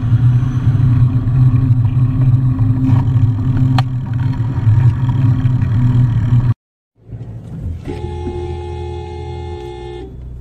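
Steady low engine and road rumble from the recording vehicle, which cuts off abruptly after about six and a half seconds. After a brief gap, lighter traffic noise follows, with a car horn sounding one steady blast for about two seconds near the end.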